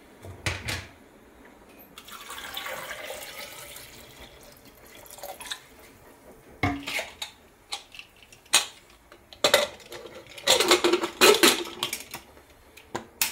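Water poured into an aluminium pressure cooker over taro roots, then metal clinks and a loud clatter as the cooker's lid is fitted and locked under its handle. The pouring comes about two seconds in, and the clatter is loudest near the end.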